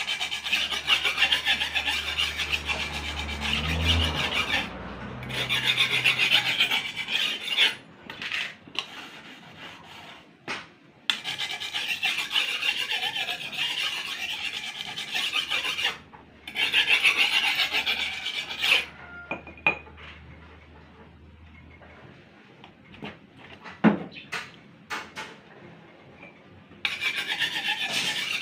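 Steel edge of a bolo machete scraped against a hand file in quick rasping strokes, to file out small chips in the edge. The filing comes in several spells with pauses in between, and a few sharp clicks and taps fall in the pauses.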